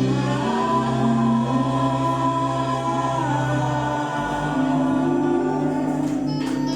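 Gospel choir singing, holding long sustained notes; the chord changes about four seconds in.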